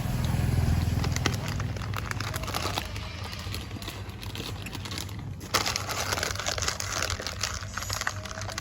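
Irregular crackling and rustling with many small clicks. It drops away briefly a little past the middle, then comes back louder.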